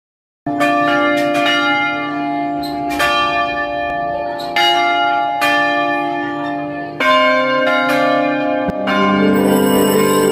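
Large bronze church bells in steel swinging frames, rung by rope: an uneven run of strokes, each clang ringing on into the next.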